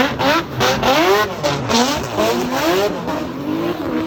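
Drift car on track, its engine revving up and falling back again and again, about twice a second, over the hiss of sliding tyres.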